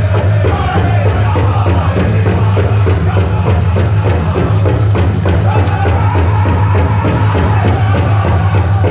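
Powwow drum group singing while pounding a big drum in a steady, even beat for a chicken dance song; the singers' voices come in strong about halfway through.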